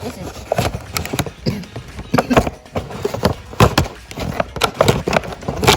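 Doll packaging being handled and opened: irregular crinkles, clicks and knocks of plastic and cardboard, loudest about three and a half seconds in and near the end.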